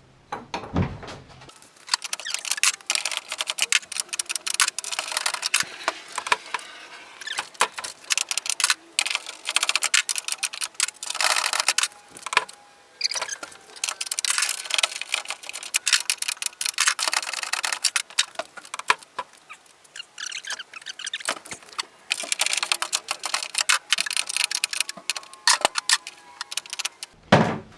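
Ratchet spanner clicking in rapid runs of a second or two, again and again, as the door hinge bolts are loosened and retightened to shift the door's alignment.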